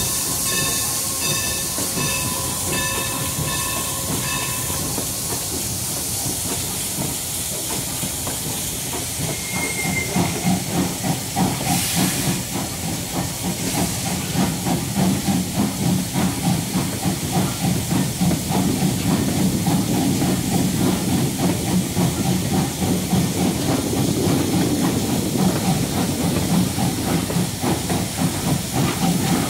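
Steam train with steam hissing. A repeated ringing tone, struck over and over, stops about five seconds in. From about ten seconds a rhythmic beat of roughly two a second sets in as the train runs, with a short loud hiss about twelve seconds in.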